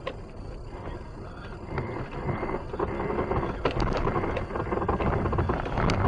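Noise inside a moving car's cabin as it drives on a packed-snow road: engine and tyre noise, growing louder about two seconds in, with a few sharp clicks.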